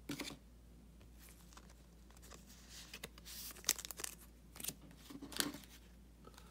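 Trading card being slid into a soft plastic penny sleeve and handled: faint, brief crinkles and rustles of thin plastic against card stock, a few of them scattered through.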